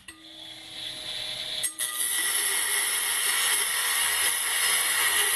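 Micro electric rotary tool running at maximum speed with a 75 mm abrasive cut-off disc, a steady whine. A bit under two seconds in the disc bites into the steel bar and a loud, even grinding hiss of the disc cutting steel takes over.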